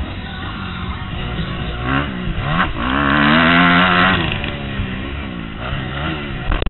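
Kawasaki KX250F four-stroke single-cylinder motocross engine, heard from on the bike, revving out of a corner and accelerating hard. Its pitch rises and falls with the throttle and gear changes, and it is loudest about three seconds in.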